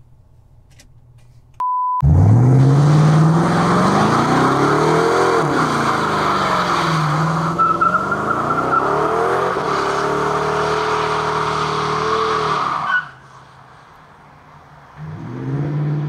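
Supercharged V8 of a Ford F-150 Harley-Davidson pickup revving hard with tyres squealing in a smoky launch, its pitch climbing, dropping back and climbing again before it cuts off about thirteen seconds in. A short steady beep comes just before the engine, and the engine is heard again, quieter, near the end.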